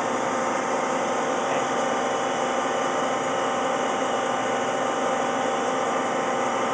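Hwacheon Hi-Tech 200A CNC lathe running through a turning cut, the spindle turning the part in the chuck against the turret tool. It makes a steady machine hum with several held tones, even and unchanging.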